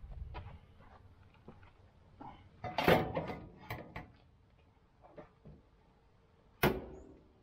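Knocks and clatter of hard parts being handled at a coin-operated self-service fuel pump: scattered light knocks, a short burst of clatter about three seconds in, and one sharp knock near the end.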